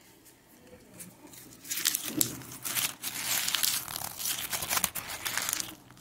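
Water splashing and sloshing in a steel bowl as raw chicken pieces are rubbed and swished by hand under a running tap. The splashing starts loudly about two seconds in, crackles on unevenly, and stops just before the end.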